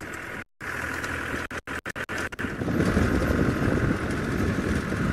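Safari vehicle's engine running as it drives, a steady low noise. The sound cuts out briefly a few times in the first two and a half seconds before the engine noise settles in.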